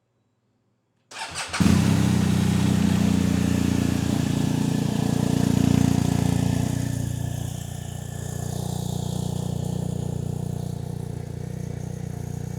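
BMW R 1250 GS Adventure's boxer twin engine is cranked briefly by the starter and catches about a second in. It runs at a raised idle, then settles to a lower, steady idle about seven seconds in. It is being run just after an oil change to fill the new oil filter.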